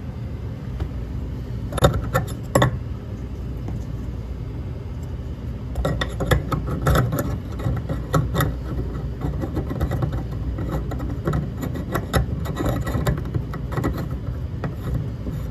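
Handling noise from a red plastic MSA Ultima X replacement sensor being fitted and screwed by hand into its threaded stainless housing: two sharp clicks about two seconds in, then a run of light clicks and scrapes from about six seconds in. A steady low rumble underlies it.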